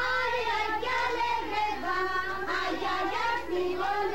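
A crowd of voices, mostly children's, singing together unevenly, a Christmas posada song.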